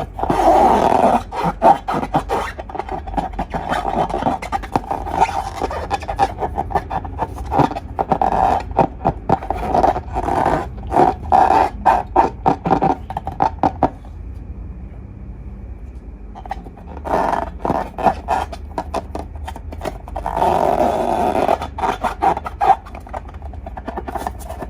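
Slime being squeezed and kneaded by hand, with rapid wet clicks and pops from air pockets bursting in it. The sound eases off for a few seconds just past the middle, then picks up again.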